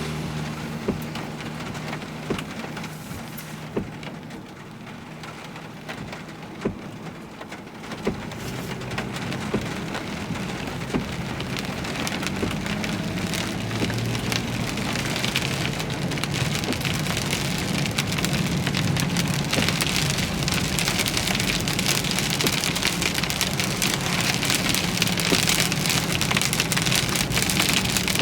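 Rain hitting a moving vehicle: a few separate heavy drops tap in the first several seconds, then the rain builds to a steady, growing downpour over a low hum from the car.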